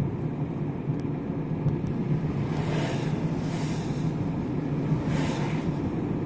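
Steady engine and tyre drone heard from inside a moving car's cabin. Other cars pass with a brief hiss about three seconds in and again about five seconds in.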